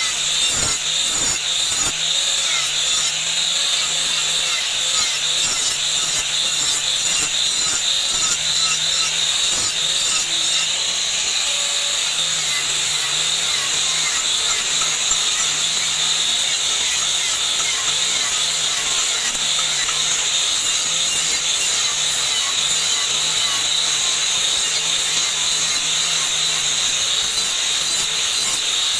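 Handheld angle grinder with an abrasive disc grinding the steel blade of a meat cleaver, a steady, unbroken grind.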